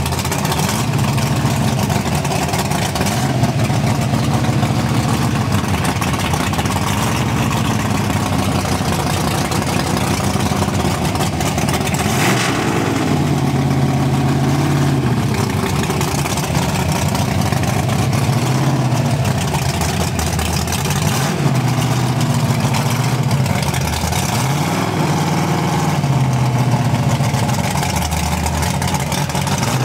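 Ford 406 cubic-inch FE V8 of a 1962 Galaxie drag car running loud at a fast idle, its engine speed swelling and dropping back every few seconds.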